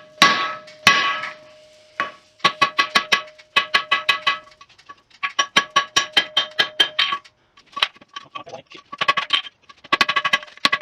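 Forging hammer striking hot steel on an anvil, the anvil ringing with each blow. There are a couple of heavy, spaced blows in the first second, then quick runs of lighter blows at about seven a second, with short pauses between the runs.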